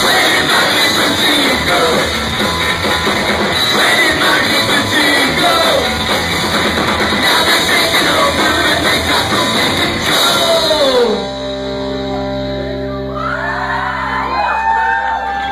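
Ska-punk band playing loud live with shouted, sung vocals. About eleven seconds in, the band drops out to a single held chord that rings on, with voices shouting over it near the end.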